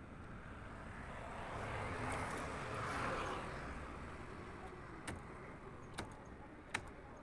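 A motor vehicle passing on the road, rising and fading over a few seconds, followed by three sharp clicks about a second apart.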